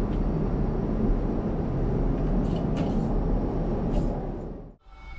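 Steady, low rumbling cabin noise inside an Airbus A350-900 airliner in flight, fading out near the end.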